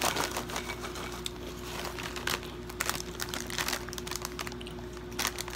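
A plastic Cheetos bag crinkling as a hand reaches into it, mixed with crunchy chewing and small mouth clicks. A steady hum runs underneath.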